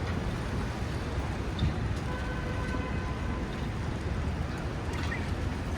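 City street ambience: a steady low rumble of traffic, with faint scattered ticks and a faint thin tone about two seconds in.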